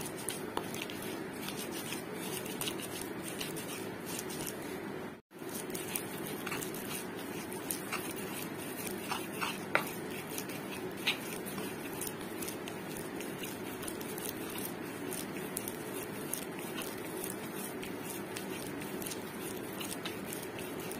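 Stone pestle grinding sambal of fried peanuts, chili and palm sugar in a clay mortar (ulekan and cobek): a steady scraping rub with scattered small clicks and knocks. It briefly cuts out about five seconds in.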